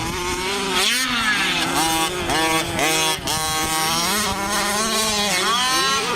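Several radio-controlled race cars' motors running hard and overlapping, their pitch rising and falling about once a second as the throttles are worked through the laps.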